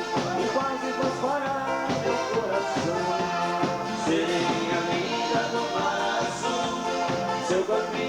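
A live dance band playing a song with a steady beat.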